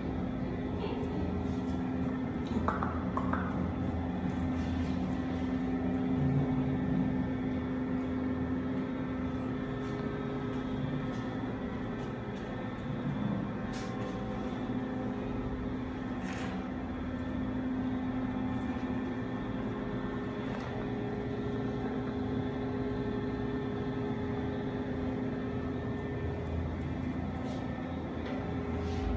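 Steady machine hum from an appliance motor running, holding several constant tones, with a couple of faint clicks near the middle.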